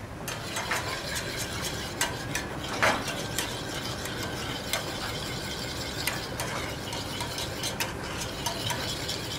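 Metal spoon stirring a small stainless steel saucepan of cream sauce being reheated on a gas burner, clicking and scraping against the pan's sides in irregular taps, one louder clink about three seconds in. Steady background noise runs underneath.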